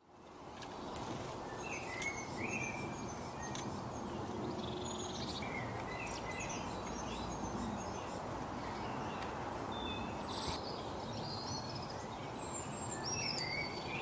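Small songbirds chirping and twittering, many short high calls scattered throughout, over a steady background hiss of outdoor noise.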